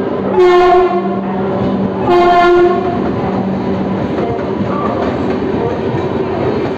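WAP-7 electric locomotive's air horn sounding two short blasts about a second and a half apart, each about half a second long, over the steady rumble of the train's coaches rolling past.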